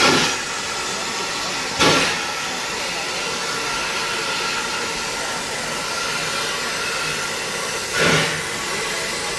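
2-6-0 steam locomotive Glenbrook, under steam, hissing steadily, with three short louder gusts of hiss: at the start, about two seconds in, and about eight seconds in.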